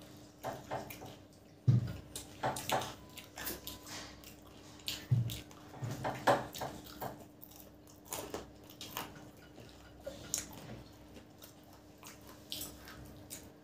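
Close-miked eating of samosas with tamarind chutney: irregular crackly bites and wet, squishy chewing, with two louder dull thumps about 2 and 5 seconds in.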